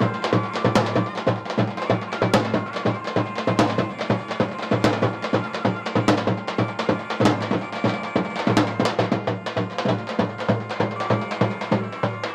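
Several lodra, large double-headed Albanian tupan drums, beaten with a heavy stick and a thin switch in a fast, steady, dense rhythm. A held reed-pipe (surle) tone sounds faintly above the drumming.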